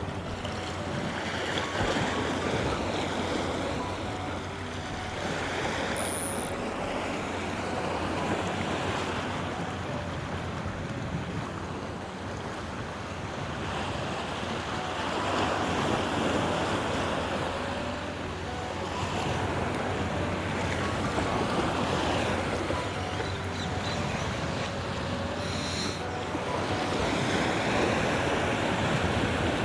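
Sea waves surging and washing against the rocks, swelling and easing every few seconds, with wind buffeting the microphone.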